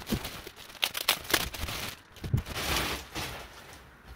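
Plastic wrapping crinkling and rustling, with several knocks against cardboard, as a plastic-wrapped chair seat is pulled out of a cardboard shipping box.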